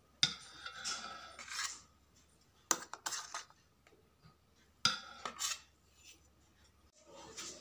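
A steel spoon scraping and clinking against a stainless steel perforated steamer as steamed tomatoes are lifted out, three clatters a couple of seconds apart, each with a short metallic ring.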